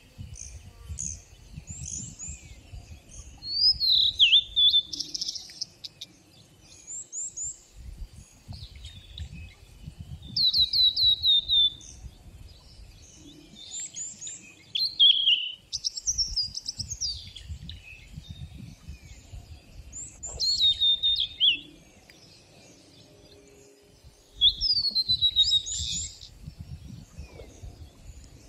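Several songbirds singing: short whistled phrases, many sliding down in pitch, ring out loudly every few seconds, with quieter chirps and trills between them. A low rumble comes and goes underneath.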